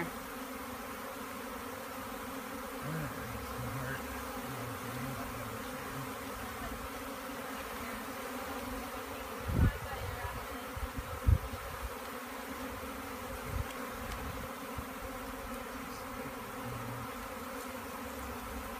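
A large swarm of honey bees buzzing in a steady, dense hum. Two brief dull knocks sound about ten and eleven seconds in.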